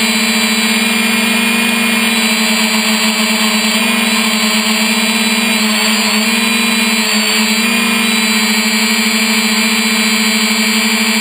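3DR Iris+ quadcopter's four motors and propellers, heard from the aircraft's own onboard camera. A loud, steady hum with a higher whine above it, wavering briefly in pitch twice around the middle as the motor speeds shift.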